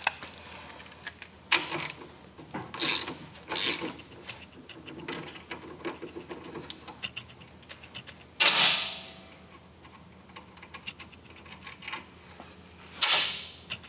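Hand tools working a nylock nut off a motorcycle's brake arm: scattered metallic clicks of a ratchet and wrench. A louder metal clatter comes about eight and a half seconds in, and another near the end.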